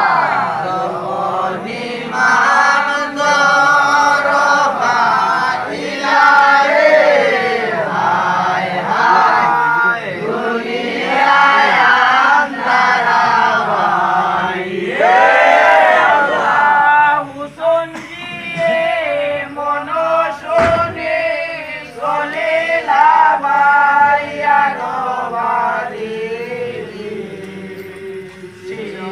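A seated group chanting a devotional song together in chorus, many voices in unison with no instruments, the melody rising and falling in long phrases.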